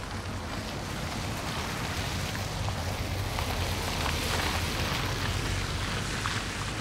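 Mini Cooper S Countryman ALL4 driving past on a dirt forest track: engine hum and tyre noise with small crackles from the track surface, growing louder to a peak about four seconds in and then easing off.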